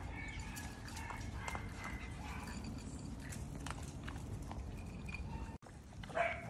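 Miniature Schnauzers eating dry kibble from bowls: scattered crunching and clicking as they chew. Near the end, a short high-pitched squeal from nursing puppies.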